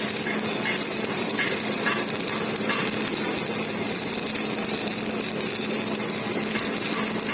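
Electric arc welding: the arc crackling and hissing steadily, with scattered sharper crackles.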